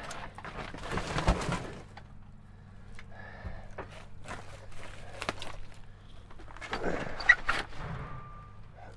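Knocks, thuds and rustling of old junk being shifted by hand, with scattered footsteps. The busiest stretches come at the start and again about seven seconds in, where a single sharp knock is the loudest sound.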